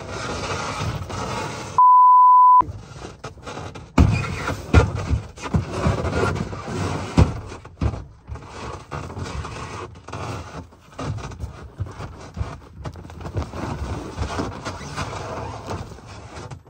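A single steady electronic censor bleep about two seconds in, lasting under a second. Around it, a cargo sled and bags are handled on snow: scraping and rustling, with several sharp knocks and thumps between about four and seven seconds in.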